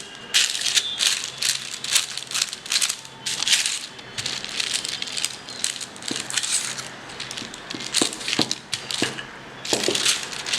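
Butter-paper sheets crinkling and rustling under a rolling pin pushed back and forth over a ball of potato dough, a series of irregular rustling strokes about one or two a second.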